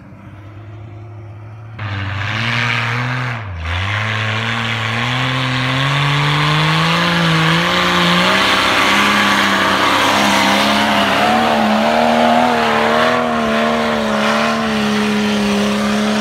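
Jeep Cherokee's 4.0-litre straight-six engine revving hard under load with its wheels spinning in snow. The engine gets louder about two seconds in, its revs climb, dip briefly, then stay high and wavering.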